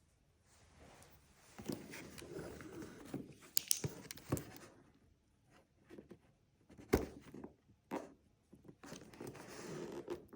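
Faint rustling and scattered clicks and taps of hands handling a cardboard box and picking at its sealing sticker.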